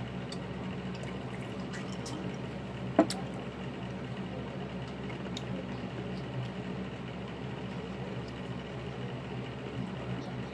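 A glass of drink sipped from and then set down with one sharp knock about three seconds in, followed by faint clicks of hands working seafood shells, over a steady low electrical hum.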